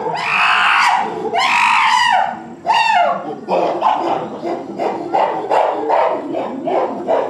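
Chimpanzees screaming: two long, loud, high calls in the first two seconds, then a quicker run of shorter calls, about three a second.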